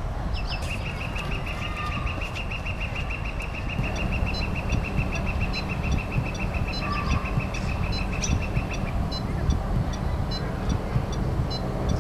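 Electronic beeping from a det pack being armed: a fast, even train of high beeps begins about half a second in and stops near nine seconds, joined from about four seconds by a slower series of higher ticks. A low rumble runs underneath and grows louder about four seconds in.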